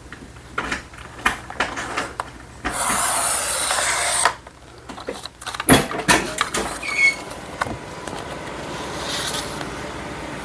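Sticker paper being handled and trimmed on a sliding-blade paper trimmer: light taps and rustles, a scraping slide lasting about a second and a half, then a sharp knock a little past halfway and a few smaller clicks.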